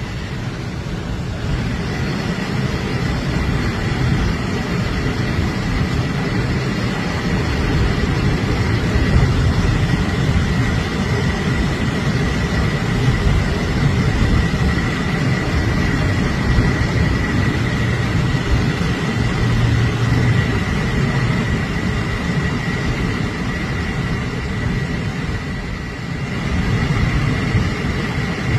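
Steady road noise of a car driving in traffic: a continuous rumble of tyres and engine, with a faint steady high whine over it.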